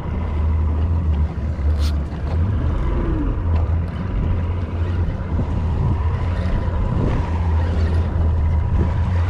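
A boat's outboard motor running steadily in reverse, a low drone with a faint whine above it.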